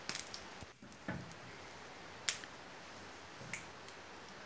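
A konda kavum deep-frying in hot oil in a pan: a faint steady sizzle with a few sharp pops and crackles, about a second apart.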